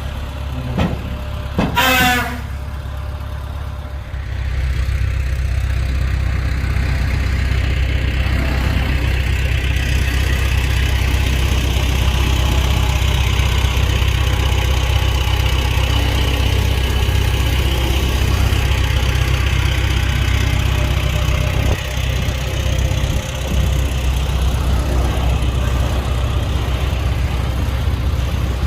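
Heavy diesel earthmoving machinery running steadily, its engine noise getting louder about four seconds in and holding there. A brief loud sound with a horn-like ring comes about two seconds in.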